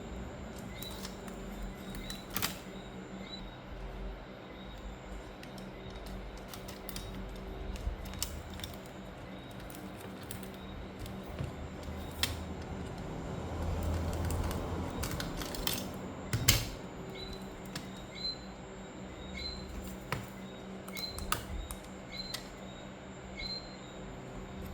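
Scattered small clicks and taps of laptop parts and screws being handled during reassembly, with a few sharper knocks, over a low steady hum.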